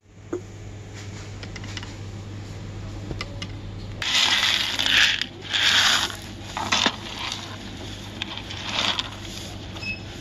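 Dried chickpeas poured from a bulk-bin scoop into a cotton drawstring produce bag: a loud rattling rush of the hard peas repeating three times from about four seconds in, and once more near the end. Before that there are only light handling clicks.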